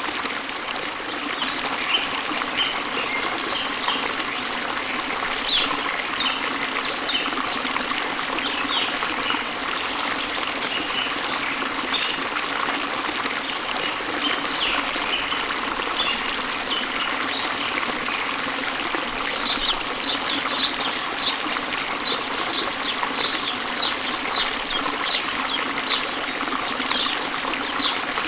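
Steady rush of water from a small waterfall or stream, with songbirds chirping over it. Short high chirps are scattered throughout, and about two-thirds of the way in a bird starts a quicker run of repeated high notes.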